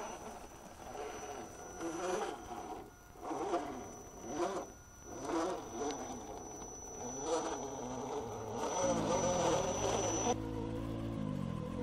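RC rock crawler's electric motor and shaft-drive gears whining in short bursts as the throttle is pulsed over rocks, its pitch rising and falling, with a thin steady high whine. Near the end the sound changes abruptly to a steadier motor whine that steps up and down in pitch.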